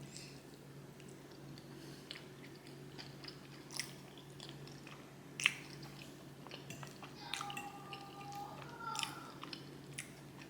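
Close-miked chewing and lip-smacking, with scattered wet mouth clicks and a sharp smack about five and a half seconds in. A faint drawn-out call sounds in the background between about seven and nine seconds in.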